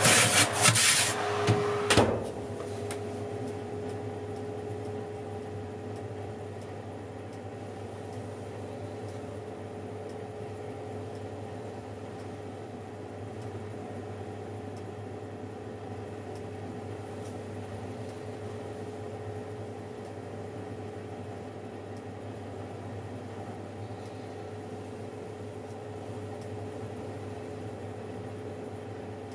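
Oven running with a steady hum, a held tone over a low drone, while cookies bake inside. In the first two seconds there are loud knocks and rubbing as the phone is handled against the oven door.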